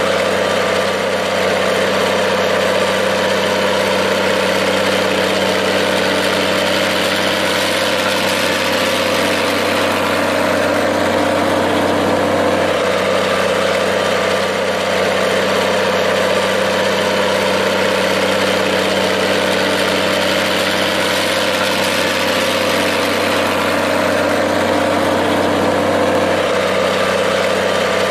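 Minneapolis-Moline G-1350 tractor engine idling at a steady speed.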